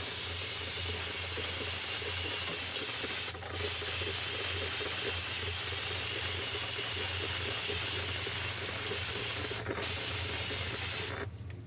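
Electrostatic powder-coating gun spraying powder on compressed air, run by a foot pedal: a steady hiss with a low hum underneath, broken briefly twice and cut off sharply near the end.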